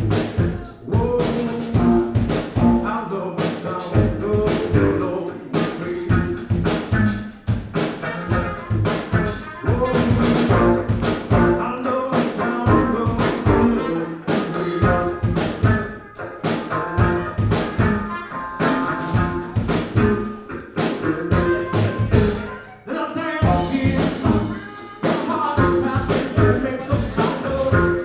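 Live band music with a steady drum-kit beat under sustained melody lines.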